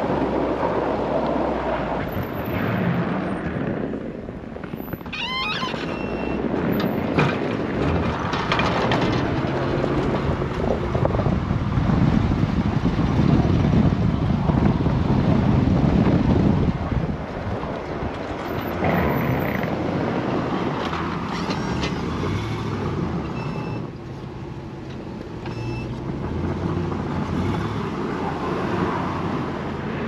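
Pickup plow truck driving by with its V-plow blade pushing and throwing snow, a mix of engine and rushing snow that swells to its loudest as the truck passes close about halfway through.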